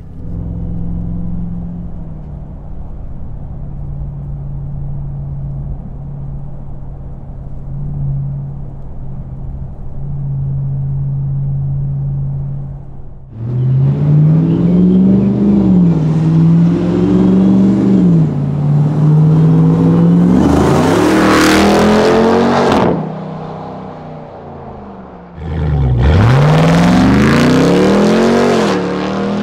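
Supercharged 6.2-litre V8 of a Ram 1500 TRX running through an aFe Vulcan muffler-less X/H-pipe cat-back exhaust. It first holds a steady drone heard inside the cab at cruise. About thirteen seconds in it turns to loud outside passes with revs rising and falling: a high-revving run past the middle, a brief easing off, then another loud acceleration near the end.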